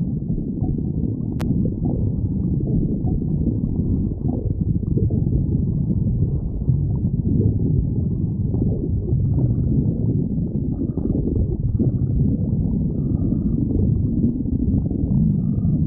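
A person's stomach growling: a steady low rumble with continuous gurgling, and a few faint higher gurgles in the second half.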